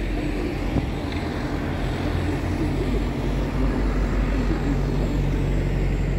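City street traffic with a red double-decker bus's engine running close by: a steady low hum that grows a little louder about three seconds in.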